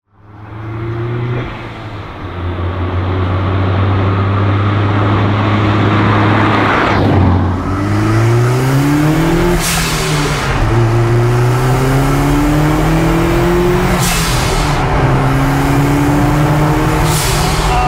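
Hillman Imp's rear-mounted 1.9-litre Volvo 16-valve turbocharged four-cylinder driven hard, heard from inside the cabin. The engine note climbs and drops with gear changes, and there is a short hiss at two of the changes, about ten and fourteen seconds in.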